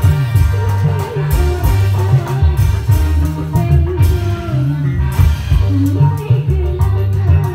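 Loud music with a stepping bass line, steady percussion strokes and a wavering melody line over it.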